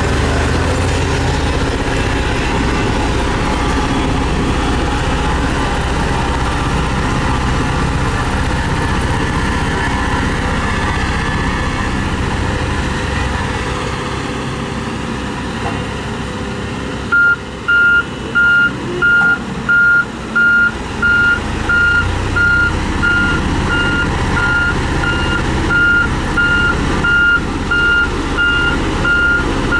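Heavy road-construction vehicle engine running steadily. A little past halfway a reversing alarm starts beeping, one steady tone about one and a half times a second, as a vehicle backs up.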